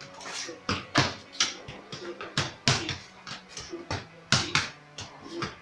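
A football kicked against a wall and trapped underfoot as it comes back: a steady run of sharp thuds, about two or three a second, as kick, wall strike and control follow one another.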